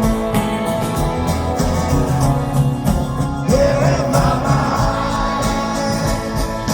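Live rock band playing a song in a stadium, with guitars, drums and singing.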